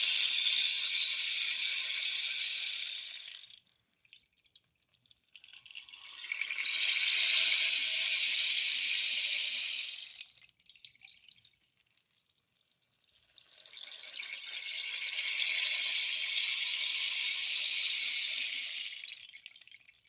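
A 40-inch cactus rain stick turned end over end: three long, high, pattering cascades of falling pebbles, each lasting several seconds, with short near-silent pauses and a few stray ticks between them as the stick is flipped.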